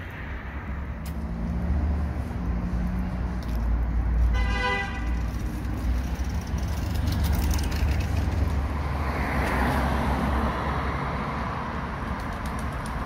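City road traffic: car engines and tyres passing steadily, with one short car horn toot about four seconds in.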